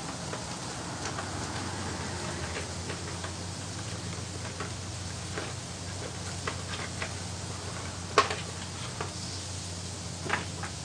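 A cardboard box being handled and opened: scattered light taps and clicks, the sharpest about eight seconds in. Under it, a steady low hum and a faint sizzle of hot dogs on a griddle.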